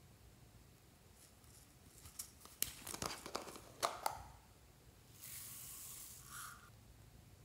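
Small plastic jar of foam beads handled and its lid taken off, with a string of light clicks and crackles, then the beads poured out onto the slime in a soft steady hiss lasting about a second and a half.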